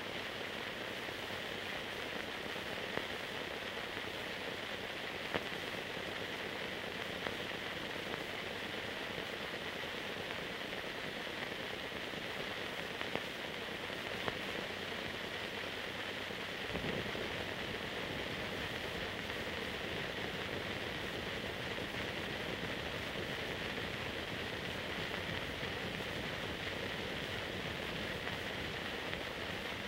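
Steady hiss of a silent archival film transfer, with a few faint clicks; no soundtrack sound. About 17 seconds in, the hiss gains a low rumble.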